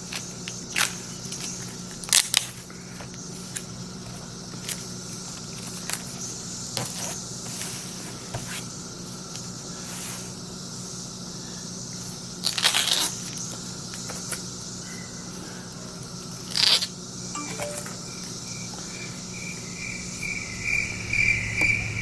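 Scattered crackles, scrapes and a few sharp clicks as a lithium polymer laptop battery pack is pried apart. Over the last few seconds a high, rapid chirping starts up and keeps going.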